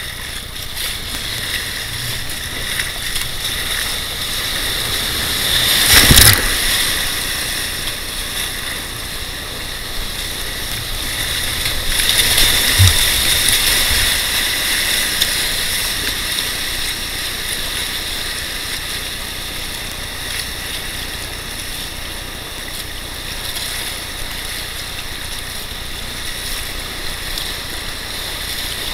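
Whitewater rapids rushing steadily around a kayak running the course, with a sudden loud splash about six seconds in and a louder stretch of rushing water around twelve to fifteen seconds.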